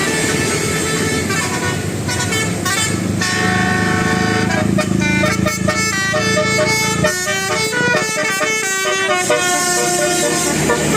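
Bus 'telolet basuri' musical horn playing a quick melody of short stepped notes, most of them from about two seconds in until near the end, over a steady low rumble.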